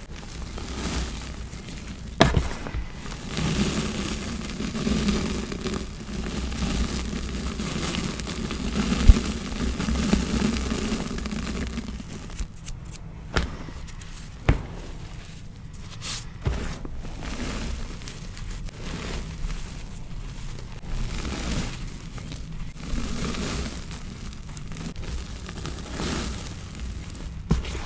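Cloth-gloved hands crushing and rubbing a soft, buttery block of gym chalk. It crumbles and scrapes steadily, with a few sharp cracks; the loudest is about nine seconds in.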